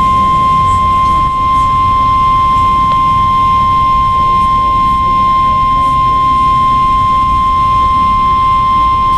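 Weather Radio Canada's 1050 Hz warning alarm tone, one steady, loud, high-pitched beep held unbroken, played through a Midland HH54 weather radio's speaker. The tone marks the start of the monthly alert test.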